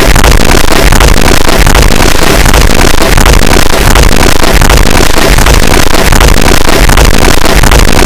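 Extremely loud, heavily distorted noise, clipped at full volume: a harsh, unbroken wall of sound covering every pitch, with no pauses.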